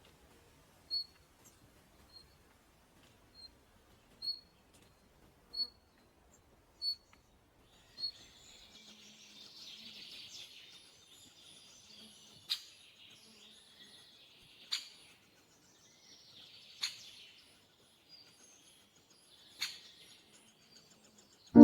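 Small birds calling: short high chirps repeated about once a second, then from about 8 seconds in a busier chorus of high chirping with a sharp call every two seconds or so.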